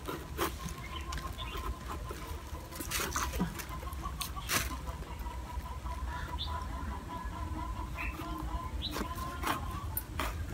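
A kitchen knife sawing through the thick, knobbly rind of a whole jackfruit, giving scattered short crunching cuts. A chicken clucks and small birds chirp in the background, over a faint steady high tone.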